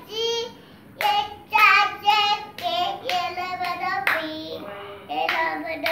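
A young child singing in a high voice and clapping along.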